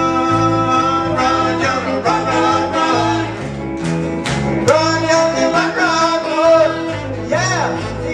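Live country-style band music: electric and acoustic guitars over a moving bass line, with a man's voice singing held notes. A few sharp hits come about halfway through.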